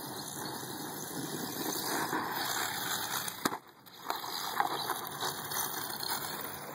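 Radio-controlled truck running across dry dirt and grass, its motor and tyres making a steady noisy rush that builds over the first few seconds. The sound drops out briefly about halfway, then comes back with a few sharp clicks and knocks.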